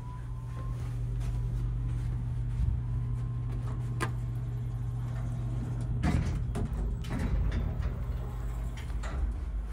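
Small passenger elevator running with a steady low hum. A sharp click comes about four seconds in as a floor button is pressed, and knocks and rattles follow about six to seven seconds in as the car stops and its doors slide open.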